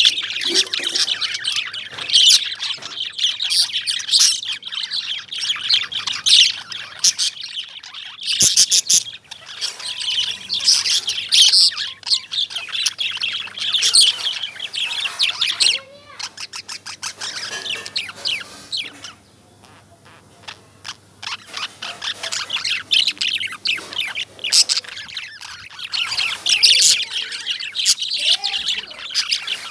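Several caged lovebirds chirping and chattering together in dense, shrill, rapid calls, dropping to a brief lull of about two seconds around the middle before picking up again.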